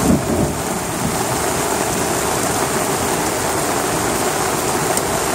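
Heavy rain pouring steadily onto a lawn and pavement, a dense even hiss, with a brief low rumble just at the start.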